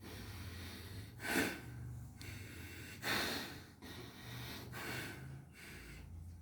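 A man breathing slowly and deeply through one nostril at a time in alternate-nostril breathing (anulom vilom pranayama). Two louder nasal breaths come about one second and three seconds in, with softer breathing between.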